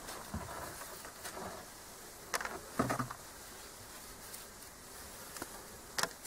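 Cord rubbing as it is wound tightly around the joint of two birch saplings being lashed into a bow, with a few light knocks of the wooden sticks.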